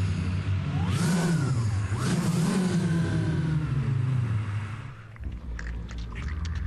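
Voices of a choir imitating a car engine revving, the pitch rising and falling in three swells, then a run of sharp clicks near the end.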